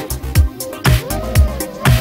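Electronic dance music with a steady kick-drum beat, about two beats a second, and crisp high percussion over it.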